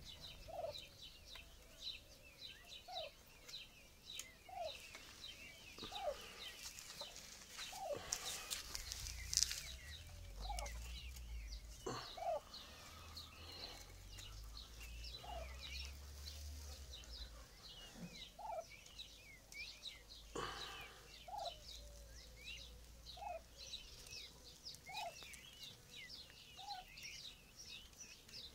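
Young peafowl in a feeding flock peeping: many short high chirps overlapping throughout, with a lower call repeating every second or two and a few sharp clicks.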